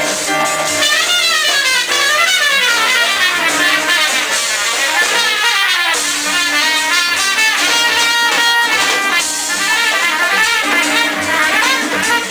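Latin jazz band playing live: piano and trumpet over hand percussion, with fast melodic runs rising and falling.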